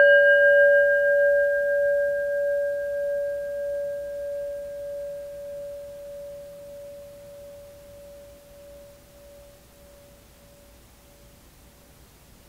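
A chime ringing out from a single strike: one clear, steady tone with fainter higher overtones, slowly fading with a gentle pulsing until it dies away near the end.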